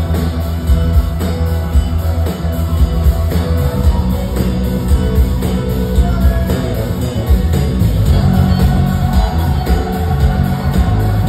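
Live funk band playing loud and continuously: a busy electric bass line on a Sterling signature bass leads, over drums, organ and electric guitar.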